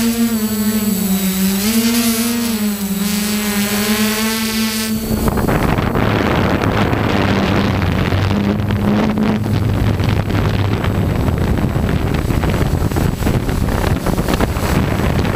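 Multirotor drone's DJI E300 motors and propellers whining at takeoff, the pitch wavering up and down with the throttle for about five seconds. Then a rough rushing noise with a fainter steady hum as the drone climbs.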